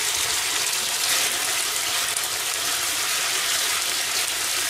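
Spaghetti sizzling in a hot pan as it is tossed with chopsticks: a steady hiss.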